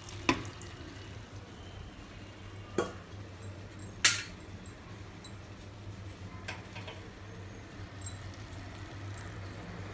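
Kitchen utensil sounds while biryani is layered in a kadai: a few sharp metal clinks of a steel spoon against a steel bowl and pan, the loudest about four seconds in, over a steady low hum.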